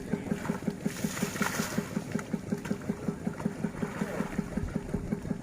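Engine idling with an even beat, about five pulses a second, and a brief hiss about a second in.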